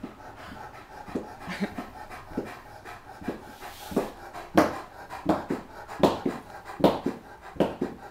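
Great Dane panting through an open mouth: loud, breathy pants, uneven at first, then coming steadily about once every three-quarters of a second and louder from about halfway through.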